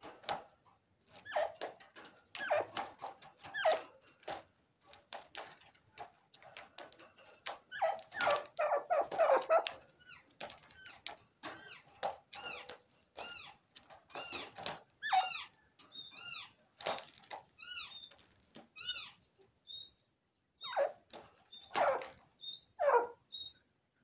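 Young francolin (teetar) calling in a run of short chirps: dense clusters at first, then quick arched chirps repeated about twice a second, and short high pips near the end.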